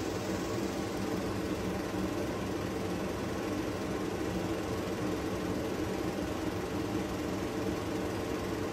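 A steady mechanical hum with several low droning tones that hold unchanged throughout.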